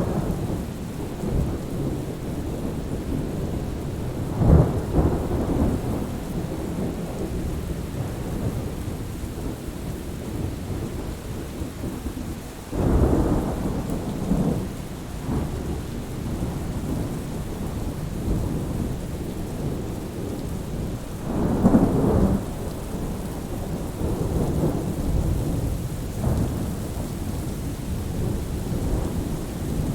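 Thunderstorm: steady rain with rolling thunder rumbling repeatedly, the loudest rolls about 4 seconds in, around 13 seconds, and around 22 seconds.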